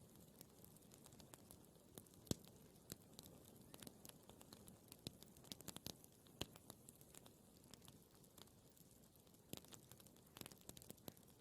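Campfire crackling: scattered, irregular wood pops and snaps over a faint steady hiss, with one sharper pop about two seconds in.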